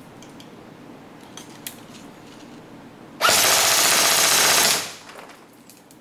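SRC SR4 airsoft electric gun firing one full-auto burst of about a second and a half for a rate-of-fire test, a fast mechanical rattle of the gearbox cycling.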